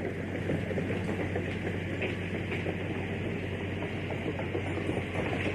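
An engine running steadily: a constant low hum with a rough, crackling noise over it.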